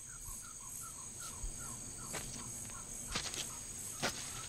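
Night insect chorus: a steady high trill of crickets, with a soft two-note chirp repeating about four times a second. A few sharp clicks come in the second half.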